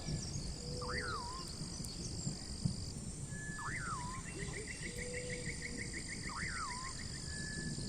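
Forest ambience: steady high-pitched insect buzzing, with an animal's sharp rising-and-falling call repeated about every three seconds and a fast trill of short, even notes through the middle.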